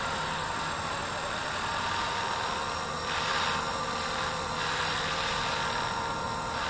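Blade 230S V2 electric RC helicopter hovering low, its brushless motor and rotor blades making a steady whine over a rushing hiss. The rushing swells louder about three seconds in and again near the end.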